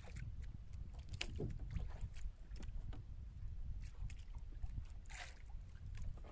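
Wind and water noise around a small fishing boat at sea: a steady low rumble with scattered light knocks and rustles, the most marked about a second in and about five seconds in.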